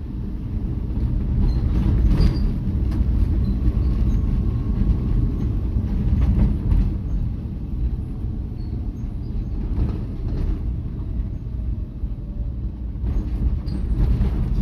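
Steady low rumble of a vehicle in motion, heard from on board: engine and road noise, with a few brief knocks from bumps in the road.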